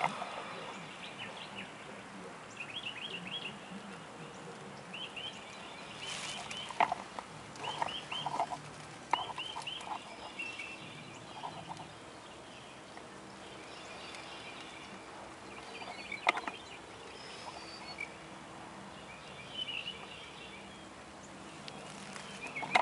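Birds calling: short runs of quick, high chirping notes, repeated every second or two, with two sharp knocks in between.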